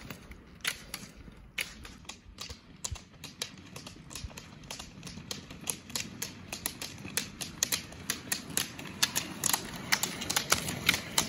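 Roller-ski poles' hard tips clicking on asphalt as a group of skate roller skiers passes. The clicks are sparse at first, then come thick and louder in the last few seconds over a low rolling hum of the wheels.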